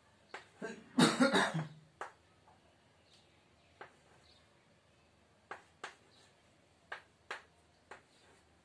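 Chalk tapping and scraping on a chalkboard as numbers are written: a string of short sharp taps, some in quick pairs, spread over the last six seconds. About a second in, a louder short throaty burst, like a brief cough.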